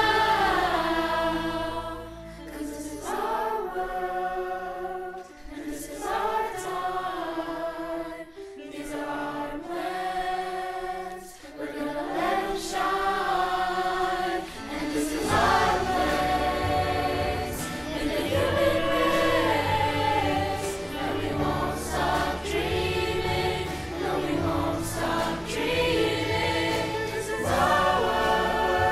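Children's virtual choir singing. The deep lower part of the accompaniment drops away a few seconds in and returns about halfway through.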